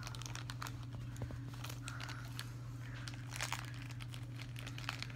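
Toy packaging crinkling and tearing as it is handled and opened by hand, a scatter of irregular crackles, over a steady low hum.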